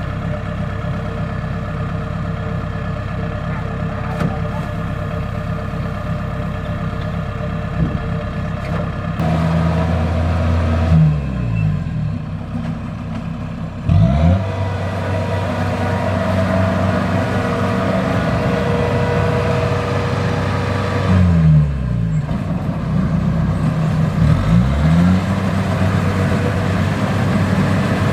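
Kubota DC-70 combine harvester running steadily with a whine from its working machinery. The engine's pitch dips and climbs back four times as the load or revs change.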